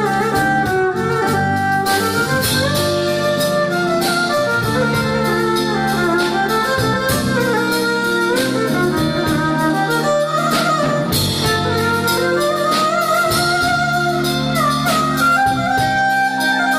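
Jazz-folk fusion improvisation on violin with electric keyboard and drum kit: the violin plays a melodic line with sliding notes over held keyboard chords, with steady drum and cymbal strokes.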